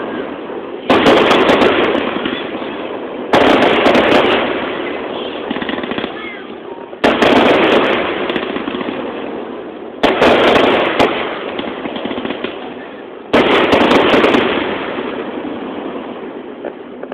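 Fireworks display: five aerial shell bursts a few seconds apart, each a sudden loud boom that fades away slowly, with a brief crackle just after it.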